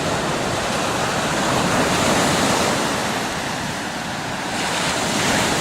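Surf washing up the beach, a steady rush of breaking waves, with wind buffeting the microphone.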